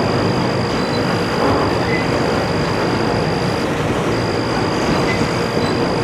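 Long Norfolk Southern intermodal stack train rolling past, a steady dense rumble of wheels on rail. A thin high whine runs over it and breaks off briefly about two-thirds of the way through.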